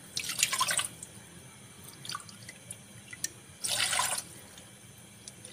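Water poured from a glass measuring cup into a stainless steel saucepan: two short splashing pours about three seconds apart, with a few faint ticks and drips between.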